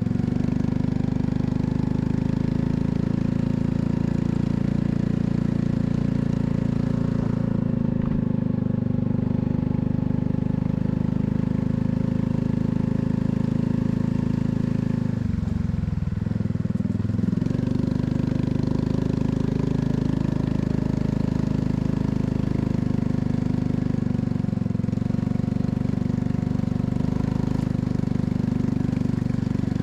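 Honda Cross Cub 110's single-cylinder four-stroke engine running steadily. Its pitch dips briefly about halfway through, then comes back up.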